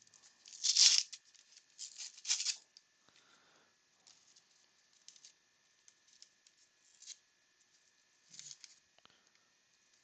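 A 1989 Upper Deck baseball card pack being torn open by hand: three loud ripping tears within the first two and a half seconds, then faint scattered rustling and sliding as the cards are handled.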